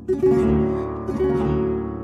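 Instrumental background music: a chord struck at the start rings out and slowly fades.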